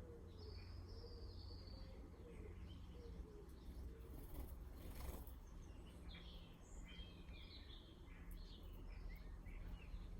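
Garden birds singing and chirping faintly, a short song phrase near the start and a busier run of chirps in the second half, over a steady low background rumble.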